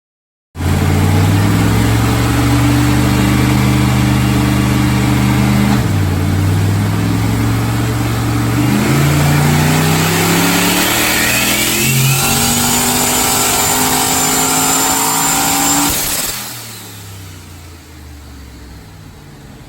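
Turbocharged LS V8 in a Holden Commodore on a full-throttle chassis-dyno pull at about 22 psi of boost, breathing through a full exhaust with a cat and two mufflers. The engine note climbs in pitch with a few brief dips, and a high rising turbo whistle comes in over the second half. About sixteen seconds in it backs off abruptly and winds down.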